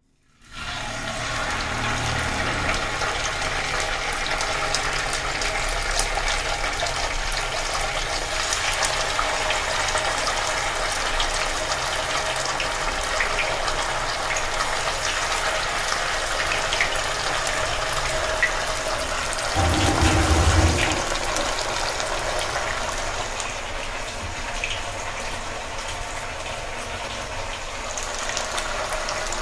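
Pieces of marinated parrot fish deep frying in hot groundnut oil: a steady sizzle with many small crackles and pops, and a brief low rumble a little past two-thirds through.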